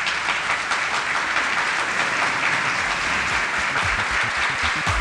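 Large audience applauding, a dense, steady crackle of many hands clapping. Low thuds come in during the last couple of seconds.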